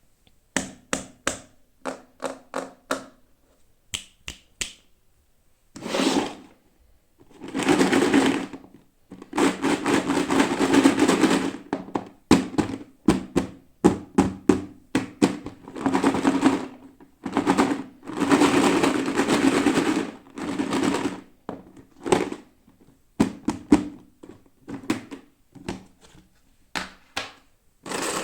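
Toy packaging being handled and opened by hand: a run of sharp taps and clicks, then repeated stretches of plastic crinkling, a second or more each, between further clicks.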